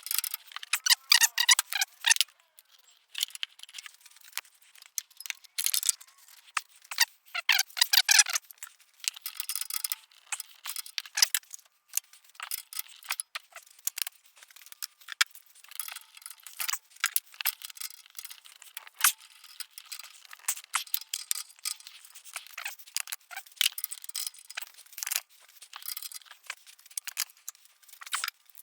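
Ratchet wrench clicking in two quick runs, about a second in and again around seven to eight seconds in, as it loosens the 15 mm nuts holding a catalytic converter to the exhaust, followed by scattered metallic clicks and clinks of the tool and nuts.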